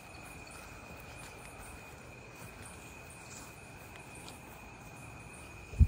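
Crickets trilling steadily, one continuous high tone over a faint outdoor hiss. A single loud thump comes near the end.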